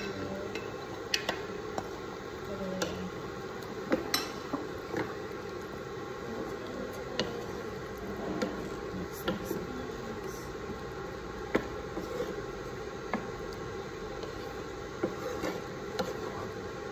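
A wooden spatula scraping and knocking against a non-stick pan and a ceramic bowl as chunks of potato and carrot are tipped into a curry and stirred, giving irregular sharp knocks over a steady hiss.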